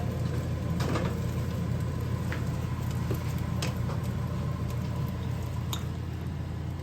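A steady low hum with a few light clicks of tableware being handled, about four in all, as the chicken is tasted.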